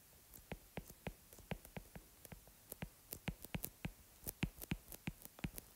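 Faint, irregular clicks of a stylus tip tapping a tablet screen while a word is handwritten, several a second.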